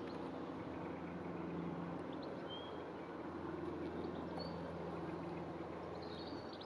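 A steady low engine hum, with a few short, high bird chirps over it.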